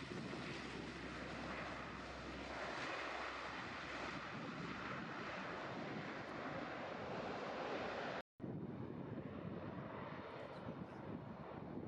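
Distant four-engine turboprop of a CC-130H-30 Hercules running, a steady rushing drone mixed with wind on the microphone. The sound drops out for a split second about eight seconds in.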